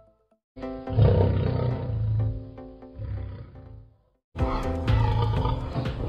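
Lion roaring in two long bouts, about three seconds each, with a brief break between them, over background music.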